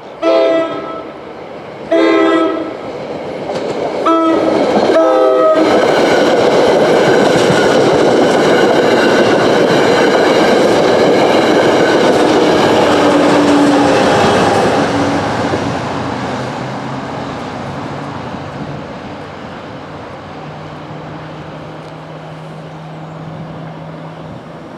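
Train horn blowing the grade-crossing signal, two long blasts, a short one and a long one, as an NJ Transit commuter train reaches the crossing. The train then passes with a loud rumble and clickety-clack of wheels on the rails, which fades off gradually over the last ten seconds or so.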